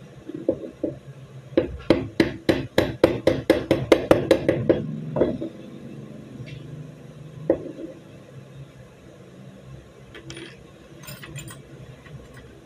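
A quick run of about a dozen sharp metallic knocks, roughly four a second over three seconds, as metal parts of a Beretta 92FS pistol are knocked and handled during stripping. A few lighter metal clicks follow later.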